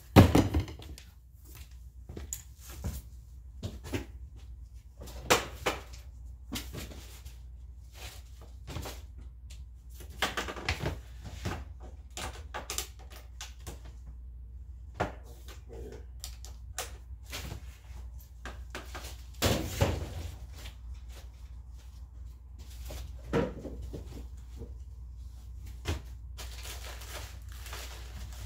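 Rummaging through stored items: irregular knocks, thuds and rustling as plastic bins and crates are lifted and set down, with a loud thud right at the start and another about twenty seconds in. A steady low hum runs underneath.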